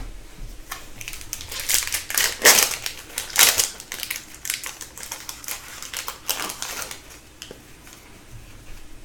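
Hockey card pack's wrapper crinkling and being crumpled while the cards are handled, in a run of irregular crackles that is busiest in the middle and thins out near the end.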